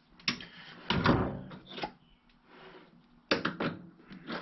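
Metal clunks and knocks as the tailstock tap holder is drawn back along the lathe and off the freshly tapped hole. There are several separate knocks, the loudest about a second in and again around three and a half seconds.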